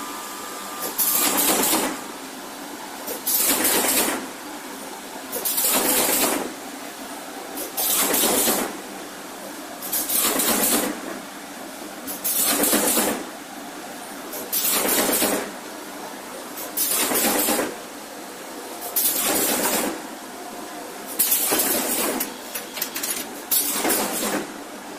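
Corrugated paperboard partition machine running in its work cycle: a steady machine noise broken by a loud rushing burst about every two seconds. Near the end the bursts turn choppier.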